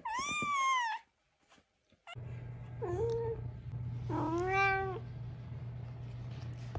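A kitten gives one high-pitched meow, then an adult domestic cat meows twice, a short call followed by a longer one, over a steady low hum.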